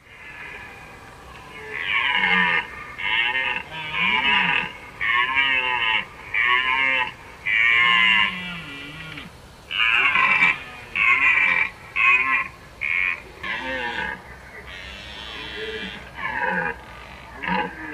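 Red deer stag roaring in the rut: a long run of bellowing roars, each under a second, about one a second, giving way near the end to a quicker series of short grunts.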